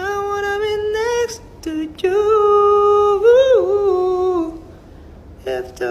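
A single voice humming a melody without words and without accompaniment: a held note, a short one, then a longer held note that rises and falls in its middle, and a few short notes near the end.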